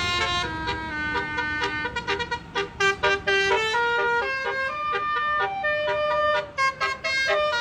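A truck's musical horn playing a quick melody of short, clear notes that change pitch several times a second, with a few notes held longer.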